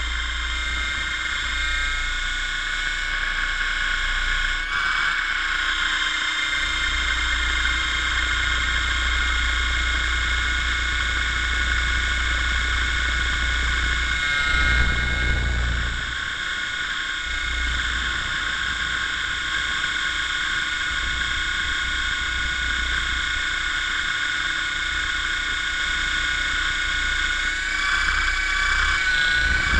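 Helicopter running, heard from a camera mounted on its rotor: a steady high whine over a low rumble, which swells briefly about halfway through.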